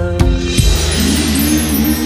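Music: a few drum beats in the first half second, then held tones under a wavering melody.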